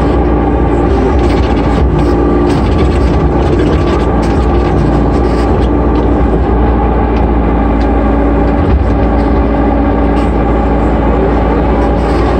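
Engine of a 5-ton Sunward mini excavator running steadily while the boom and bucket dig and swing, heard from inside the cab.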